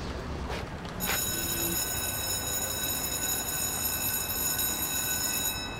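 Electric school bell ringing for the start of class: a steady metallic ring that starts suddenly about a second in and cuts off abruptly just before the end.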